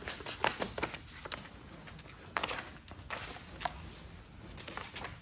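Pages of a paper instruction manual being handled and pressed flat: scattered light rustles and soft taps.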